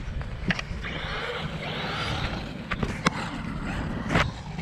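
Traxxas RC car driving over grass and mud: a rushing of tyres and motor for about two seconds, with a few sharp knocks.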